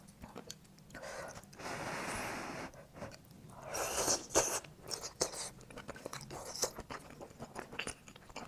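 Close-up eating sounds: wet chewing, smacking and little mouth clicks as a grilled oyster with garlic sauce is eaten. Two longer airy sounds come about two and four seconds in, the second louder, as the oyster goes into the mouth.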